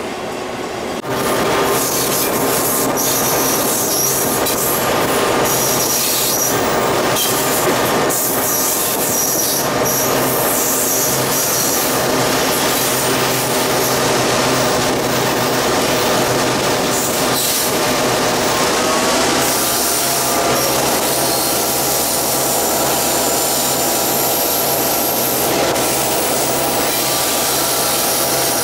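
Train running along the track, with high-pitched squealing from the wheels over the rails. The running noise comes up loud about a second in and stays steady.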